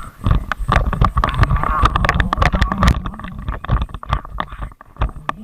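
Bicycle ridden over a wet, bumpy road: many quick knocks and rattles from the bike over a rumbling wind noise on the microphone, which eases off a little after about three seconds.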